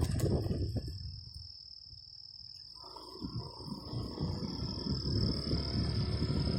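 Forest insects droning on one steady, high-pitched note, over a low rumble that fades about a second in and returns about three seconds in.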